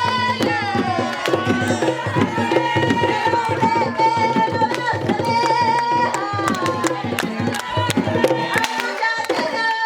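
Panamanian tamborito music: hand drums beating a quick, steady rhythm under a sung melody.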